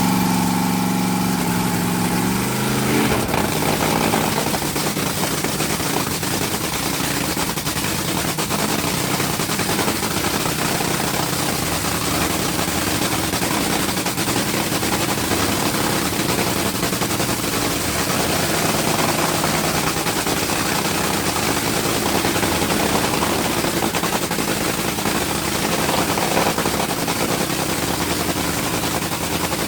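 Supercharged Top Fuel dragster V8 running. For about the first three seconds it runs evenly on alcohol, then the fuel is switched to nitromethane and it changes to a harsh, crackling, machine-gun-like rattle that runs steadily to the end.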